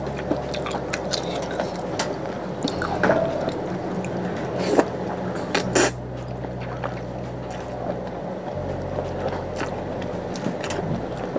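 Wet slurping of soup-soaked rice noodles, with smacking mouth clicks throughout and several louder slurps, the loudest a little before the middle.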